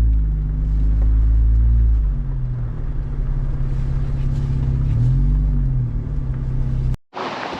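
Jeep Wrangler driving: steady low engine and road rumble, the engine pitch rising and falling twice as it speeds up and eases off. It cuts off suddenly near the end.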